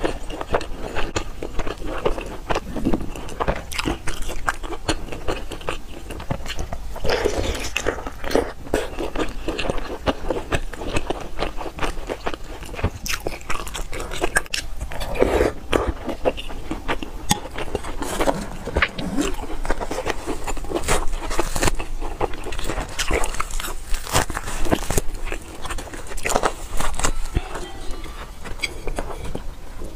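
A person biting and chewing youtiao soaked in soy milk, with many short clicks and smacks of eating throughout.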